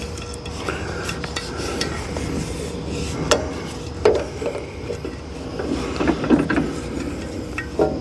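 Metal clinks, taps and rubbing from hand work at the carburetor of a Wheel Horse garden tractor's Kohler engine, with sharper knocks about three and four seconds in and a cluster around six seconds, over a steady low hum.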